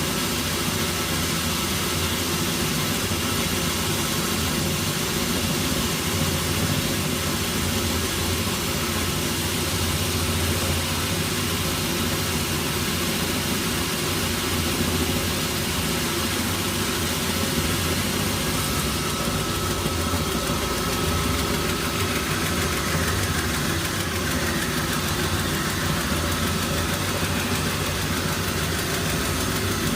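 Sawmill machinery running steadily with a constant engine-like drone. A faint thin whine joins about two-thirds of the way in.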